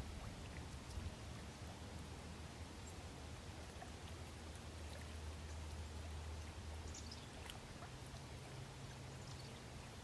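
Faint water sounds, small splashes and drips, from a young mallard swimming and dabbling in shallow marsh water. Underneath is a low steady hum that steps up in pitch about three-quarters of the way through.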